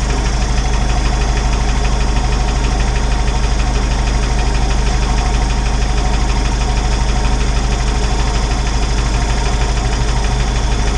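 Isuzu turbo diesel engine idling steadily, with the freshly rebuilt JATCO JR403E automatic transmission selected in drive.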